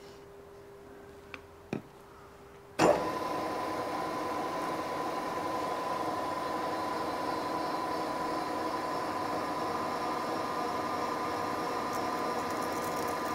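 A couple of light clicks, then a turret milling machine is switched on about three seconds in and runs steadily with one clear tone, while a freshly reground 7/16-inch twist drill cuts a hole in metal without a pilot hole.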